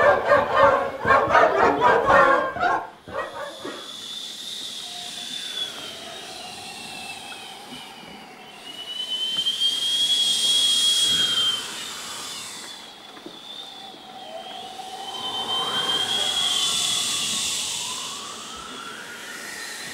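A group of voices singing stops about three seconds in. A hissing, wind-like wash of sound follows, with a high whistling tone gliding over it, swelling up twice and falling back.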